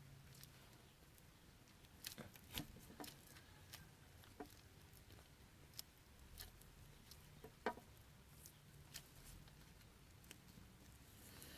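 Faint, scattered small clicks and taps from hands handling parts and tools in the engine's timing chain area, with the loudest tap about eight seconds in, over a faint low hum.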